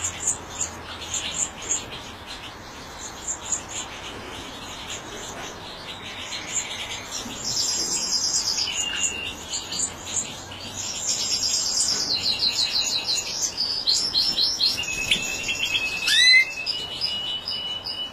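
European goldfinch singing a fast, twittering song of high chirps, trills and buzzy runs. It grows fuller in the second half, with a sharp upward note about sixteen seconds in as the loudest moment.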